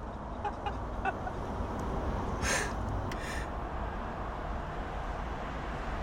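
A man's two short breathy laughs, about two and a half and three seconds in, over a steady low background hum.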